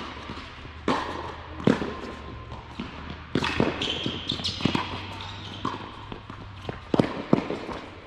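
Tennis rally: sharp pops of the ball struck by racquets and knocks of it bouncing on the hard court, irregularly about a second apart, echoing in a large indoor tennis hall.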